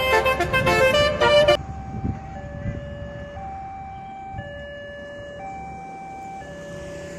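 Loud music with a beat cuts off about a second and a half in. Then a two-tone siren alternates steadily between a high and a low note, each held about a second, at a lower level.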